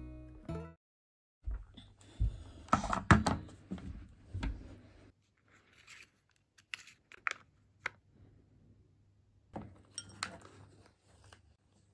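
Crinkling and tearing of packaging as the film lid is peeled off a convenience-store cup of yukgaejang soup and a packet inside it is handled, with a few sharp clicks and light knocks.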